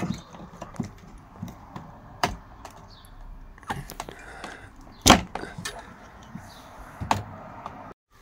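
Scattered sharp clicks and knocks from handling a plug-in phone charger and its cable at a wall socket, with the loudest knock about five seconds in.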